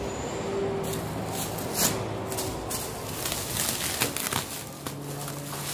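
Clear plastic stretch wrap around a dinghy crinkling and rustling in a run of short, irregular crackles as it is handled.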